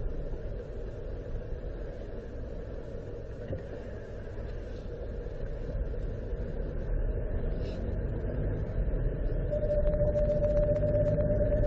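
Suzuki Xbee running, heard inside the cabin as a steady low rumble. Near the end a steady, single-pitched whine sets in and grows louder: the abnormal noise this car makes after a night below freezing, which stops after about a kilometre of driving.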